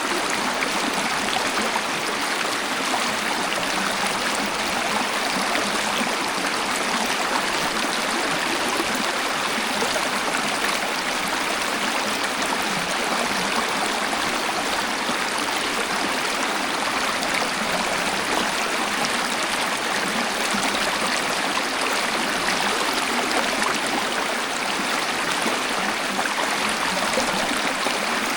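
Waterfall: a steady, unbroken rush of falling and splashing water, even throughout, with no low rumble.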